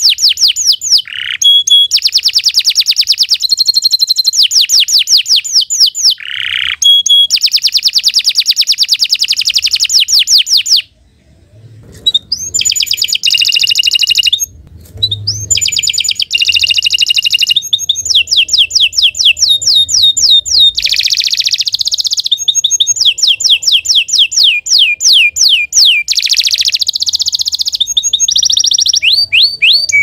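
Domestic canary singing a long, continuous song of rapid high trills and rolls, with a short break about eleven seconds in.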